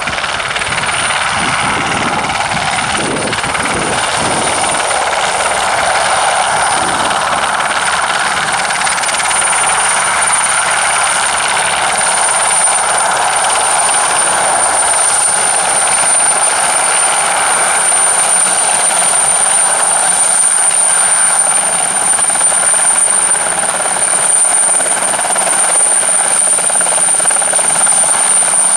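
Aérospatiale Alouette II turbine helicopter flying low and then hovering, its rotor and turbine running loud and steady with a constant high-pitched whine.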